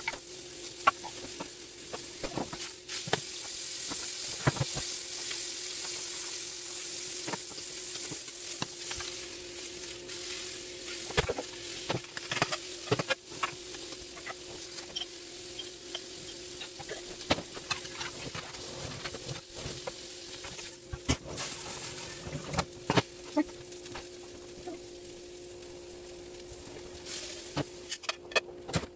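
Steak and sliced onions frying in pans with a steady sizzle, louder in the first half and thinning out later. Sharp clicks and knocks of utensils and pans are scattered throughout, over a steady hum.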